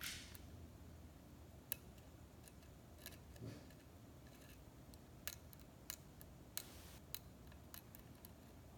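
Faint, sparse metallic clicks of a lock pick working the pins of a pin-tumbler challenge lock, about a dozen irregularly spaced ticks with near silence between them.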